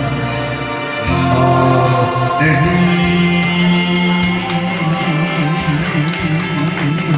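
A man singing into a microphone through a PA, over an amplified backing track. Near the end he holds a long note with a steady vibrato.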